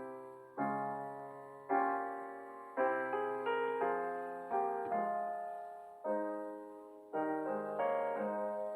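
Slow solo piano music: soft chords struck about once a second, each one left to ring and fade.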